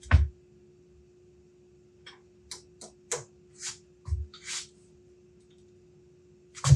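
Knocks, metallic clicks and short scrapes from hands working tooling on a metal lathe: a heavy knock at the start, a run of clicks and brief scrapes with a low thud in the middle, and another heavy knock near the end, over a steady low hum.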